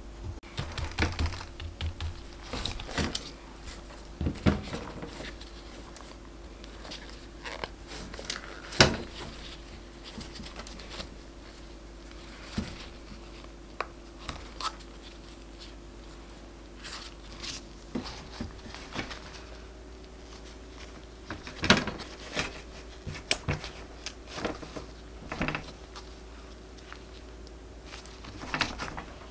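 Scattered clicks, soft knocks and crinkling of gloved hands handling a silicone heart mold as frozen mousse hearts are pushed out of it, with a sharp click about 9 s in and again near 22 s. A faint steady hum runs underneath.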